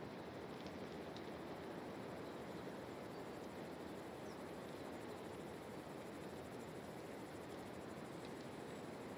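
Steady rushing ambient noise, with a few faint high clicks and a brief faint chirp.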